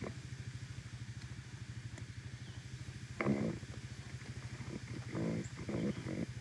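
A steady, low, rapidly pulsing drone like a running motor, with three short pitched sounds in the second half.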